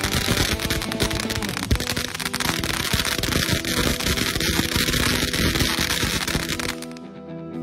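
Firework fountain spraying sparks with a dense hiss and rapid crackle, over background music. The fountain's sound cuts off suddenly near the end, leaving only the music.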